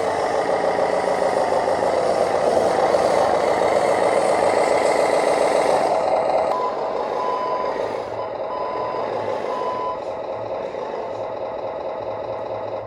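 Scale RC truck running, its drive motor and gears making a dense, loud mechanical noise. From about six and a half seconds in, the noise eases and a reverse-alarm beeper sounds a steady series of beeps, the sign that the truck is backing up.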